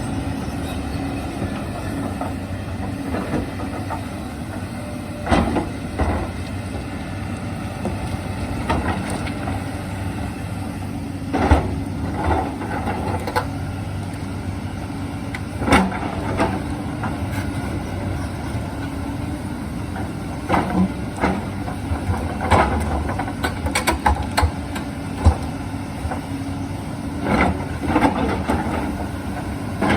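Hyundai 220 crawler excavator's diesel engine running steadily, with a string of sharp knocks and clanks as the bucket strikes and turns over rocks, more frequent in the last third.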